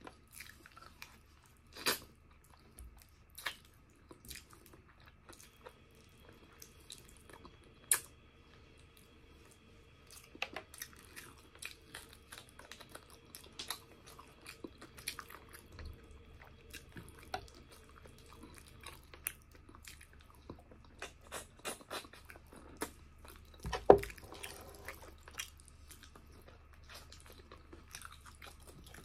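Close-miked eating sounds: wet chewing, smacking and sticky mouth clicks while eating braised pork hock. The clicks are scattered, and the loudest comes about four-fifths of the way in.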